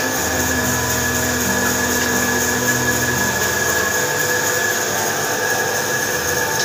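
Woodworking power machine running steadily with a constant high whine, its lower hum changing about three seconds in.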